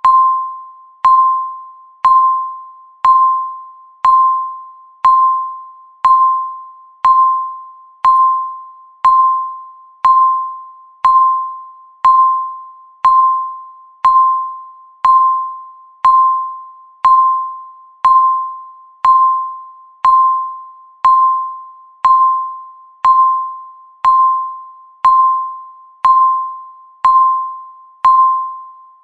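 Countdown timer's electronic beep sounding once a second, each a single mid-pitched tone that starts sharply and fades away before the next, marking off the seconds of the countdown.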